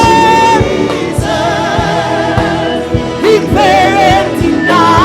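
Live gospel worship music: a singer holds long notes with vibrato over a band with a steady drum beat.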